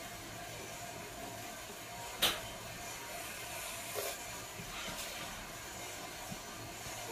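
Eating by hand: a few short clicks and smacks of food and mouth, the sharpest about two seconds in and softer ones near the middle. Under them runs a steady hiss with a faint hum.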